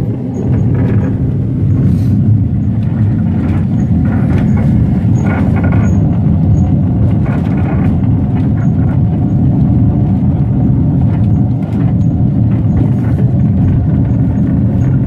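Vintage electric tram running along its rails, heard from the open front platform: a steady low rumble with scattered knocks and clicks.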